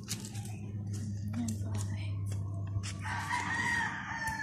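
A rooster crowing once, a long call beginning about three seconds in, with scattered clicks throughout.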